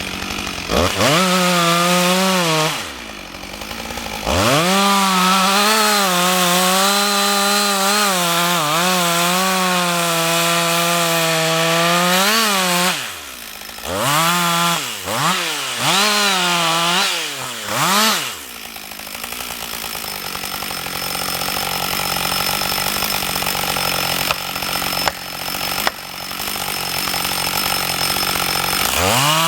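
Husqvarna 562 XP two-stroke chainsaw revved to full throttle about a second in, held high for most of ten seconds with its pitch dipping and recovering as the chain bites into wood. Then come several short throttle blips, and it idles through the second half until it revs up again at the very end.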